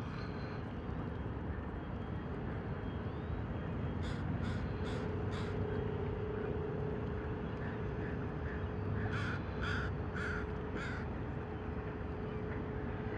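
A crow cawing in two runs, four caws about four seconds in and five more about nine seconds in. Underneath is a steady low rumble and hum from a large ship in the distance.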